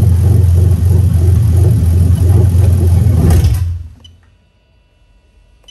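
Toyota 2JZ-GE VVT-i 3.0-litre inline-six idling steadily, then stalling about three and a half seconds in and dying away within half a second. The stall is caused by the scan tool commanding the VVT-i oil control valve open on the warm engine, a sign that the valve and its wiring are working.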